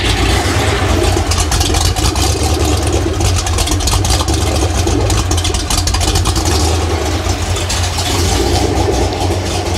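Freshly rebuilt Ford 302 small-block V8 idling steadily on a run stand, exhausting through a single muffler. The idle carries a slight surge that the owner cannot tune out of the Holley 600 carburetor and suspects is a faulty metering block.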